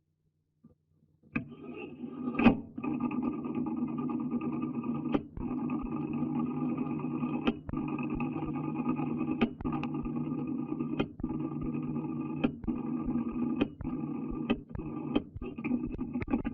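Near silence for about a second, then a dense buzzing drone from a 1971 reel-to-reel tape sound-art composition, broken by sharp clicks every second or two.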